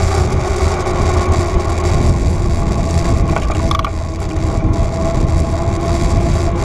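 Steady wind rush and tyre rumble from a bicycle rolling along a paved path, picked up by a camera mounted on the bike. There is a brief higher squeak a little past halfway.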